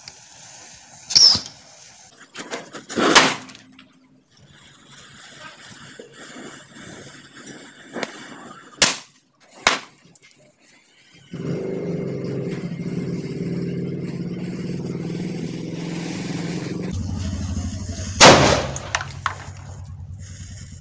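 Small Diwali firecrackers bursting as a burning matchstick chain reaches them: about five sharp bangs, two of them close together near 9 s, with the hiss and crackle of flaring matchheads between. A steady low drone fills the second half and drops lower about 17 s in.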